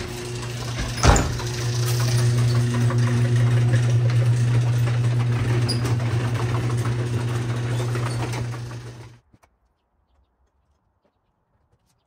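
Electric garage door opener running: a steady motor hum with a sharp clunk about a second in. It cuts off suddenly near the end.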